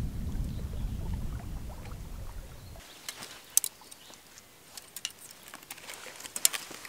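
A low rumble that cuts off suddenly about three seconds in, followed by sharp light clicks and clinks as a fishing lure on a rod and a small round tin are handled.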